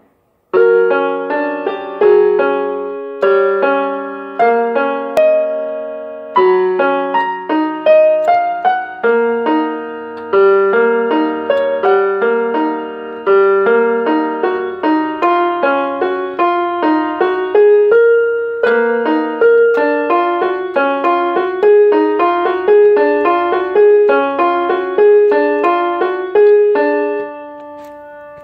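Solo piano playing an instrumental piece: a steady run of struck notes over lower chords, each note dying away after it is struck. The music begins about half a second in and the last notes ring out and fade near the end.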